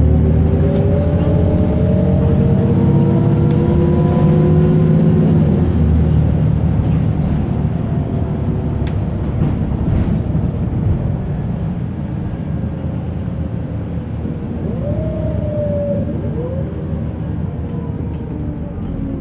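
Volvo B7RLE single-deck bus heard from on board: the diesel engine and driveline pulling away, with a whine that rises in pitch over the first few seconds. It then eases off and runs more quietly, with a brief rise and fall of whine near the end.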